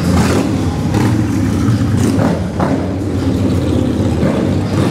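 Motorcycle engines running close alongside at low speed: a steady, low engine note.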